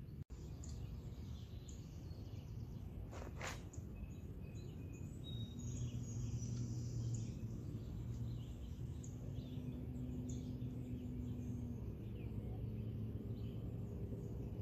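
Outdoor ambience: a steady low rumble with scattered faint bird chirps, and a single brief knock about three seconds in.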